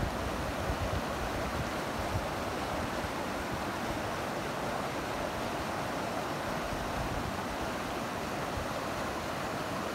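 Rocky mountain stream flowing steadily over stones, an even rush of water, with irregular low buffeting of wind on the microphone.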